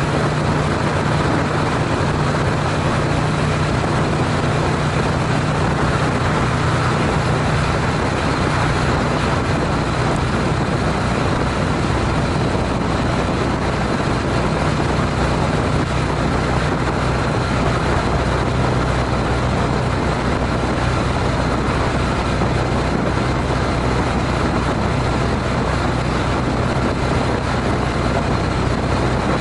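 Honda CTX700N's parallel-twin engine droning steadily at a highway cruise of about 67 mph, under a steady rush of wind and road noise.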